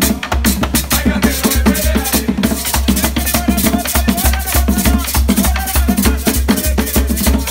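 Dominican palo drums, long hand drums, played in a fast, driving rhythm, with voices singing over them.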